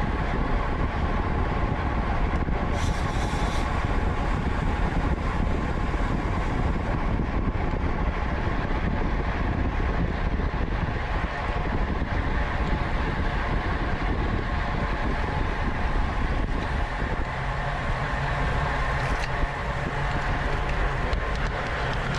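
Steady wind rush on the microphone of a camera mounted on a road bike ridden at race speed, with a low steady hum joining in about three quarters of the way through.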